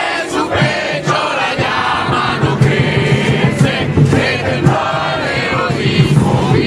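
Crowd of protesters chanting slogans in unison in Spanish, many voices shouting together in repeated phrases.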